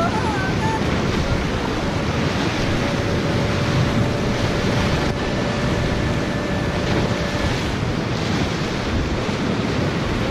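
River whitewater rapids rushing and churning around a kayak, a loud, steady rush of turbulent water with wind buffeting the microphone.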